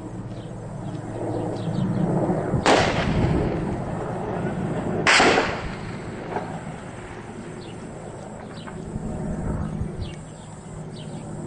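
Military helicopter overhead with a steady low rotor drone, and two sharp, loud blasts about two and a half seconds apart, each with a short trailing rumble.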